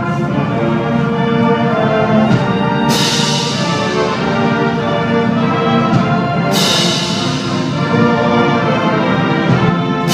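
Band music with brass and timpani and sustained chords, with cymbal crashes about three seconds in and again about six and a half seconds in.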